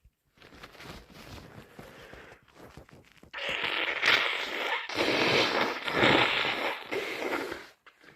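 Wet, gurgly nose blowing with a heavy cold: a quieter crackly blow, then two long hard blows about three seconds in, with a short break between them.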